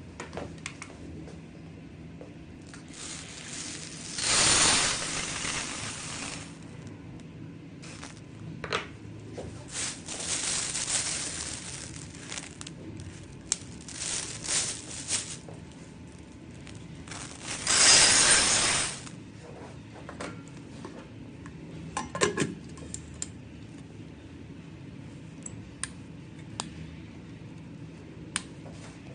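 Small dried beans poured in several pours into a stainless steel bowl, a rattling hiss of hard grains hitting metal, loudest on the first and last pours. Near the end come a few sharp metal clicks from the mill's stainless lid and its clamp latches being handled.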